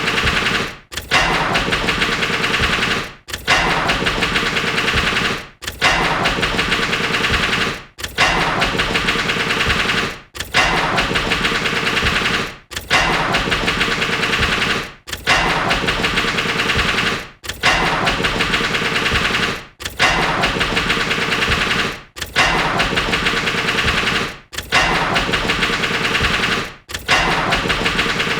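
Car engine starting and stalling again and again, about every two and a half seconds. Each try is a couple of seconds of rapid, even pulsing that dies away quickly.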